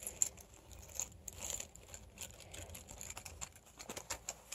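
Keys clinking faintly and fabric rustling as a bunch of keys is pushed down into a running belt's stretch pocket, with scattered small clicks.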